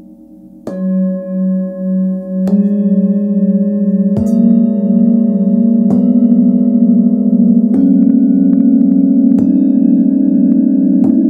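A set of seven hand-forged singing bowls struck one after another, seven strikes about every second and three-quarters. Each bowl keeps ringing, so the tones pile up into a layered chord. The first bowl's ring wavers in a slow pulse.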